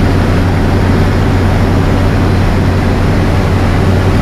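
Combine harvester running steadily while harvesting wheat, with a strong, even low hum.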